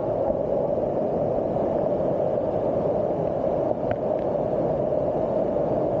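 Waterfall pouring close by: a steady rush of falling water and spray.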